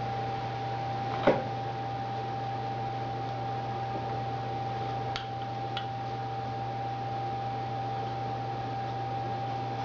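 Steady low electrical hum with a thin, steady higher tone under it. There is one sharp click about a second in and two faint ticks around five seconds in.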